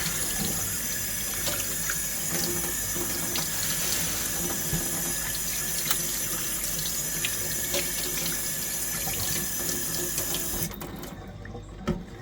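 Water running from a tap into a sink, with small clicks and clatters in the stream. Near the end the flow is turned down sharply, followed by a single knock.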